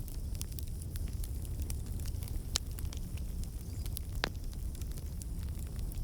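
Campfire burning: a steady low rumble of flames with scattered sharp crackles and pops of burning wood, two of them louder, about two and a half and four seconds in.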